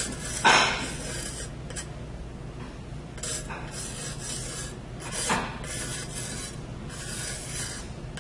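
Pencil scratching across the painted surface of a ceramic platter as letters are sketched: a series of short scratchy strokes, the loudest about half a second in.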